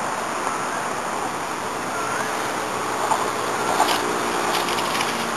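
Wind noise on the microphone, with the faint hum of a radio-controlled model plane's motor coming in about two seconds in, and a few sharp clicks near the end.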